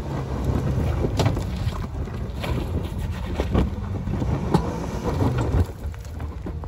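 Jeep Cherokee KL crawling up a loose, rocky dirt climb: the engine runs steadily under the sharp crunches and knocks of rocks under the tyres, getting quieter near the end.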